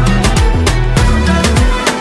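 Background music with a steady beat, sharp percussion and deep bass drum hits that drop in pitch.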